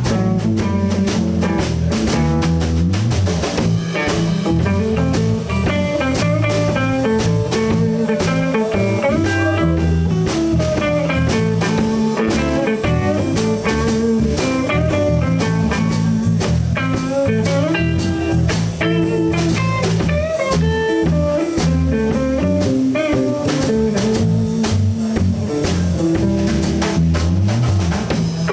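Live blues trio playing an instrumental break in a shuffle: a guitar lead over electric bass and drums played with brushes, no vocals.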